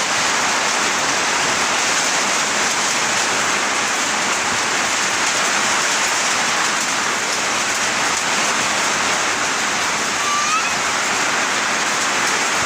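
Heavy rain pouring steadily in a summer storm: a dense, even hiss that holds at the same level throughout.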